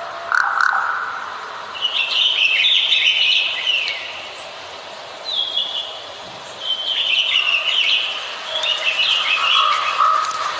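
Birds chirping and twittering in short phrases of a second or two, four times over, with a few lower whistled notes, over a steady high-pitched hiss.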